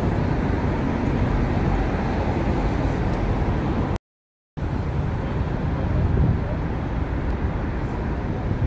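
Steady city street traffic noise at a busy intersection: car engines and tyres running and passing. About four seconds in, the sound drops out completely for half a second, then resumes.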